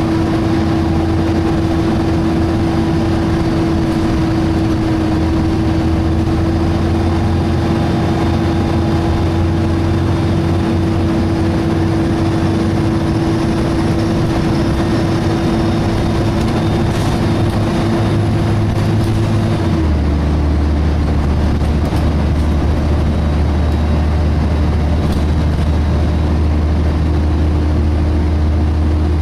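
Volvo B7TL double-decker bus's engine and cooling fan running, heard from inside the bus: a steady low drone under a strong whine. About two-thirds of the way through, both the drone and the whine step down to a lower pitch.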